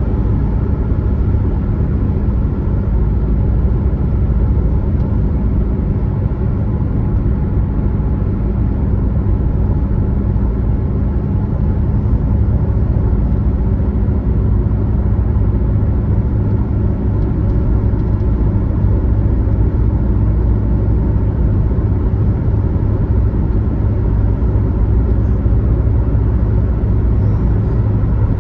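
A car driving at highway speed: a steady low rumble of road and engine noise that holds even throughout.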